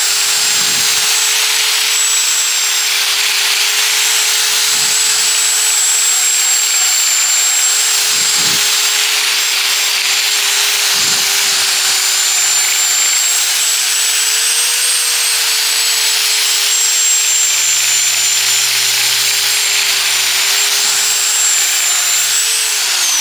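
Angle grinder fitted with a tube-sanding belt attachment running, a steady high whine over the hiss of a 400-grit belt sanding a 5/8-inch stainless steel bar. The tool is switched off near the end and its whine falls away as it spins down.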